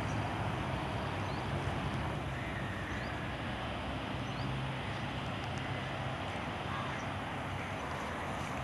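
Steady road-traffic noise from an elevated highway: a constant rushing hum of passing vehicles with a low engine drone that eases off about halfway through. A few faint high chirps sound above it.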